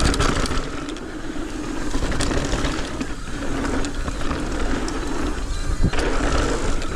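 Mountain bike rolling fast down a dirt trail: steady tyre noise and rattling from the bike, with wind rumbling on the microphone.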